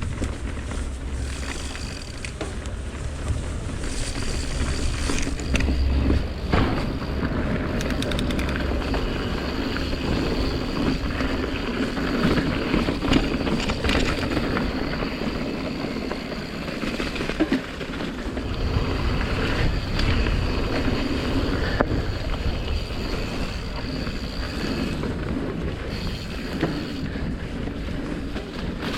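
Mountain bike riding along a dirt trail: tyres rolling over dirt, wind buffeting the microphone, and scattered knocks and rattles from the bike over bumps.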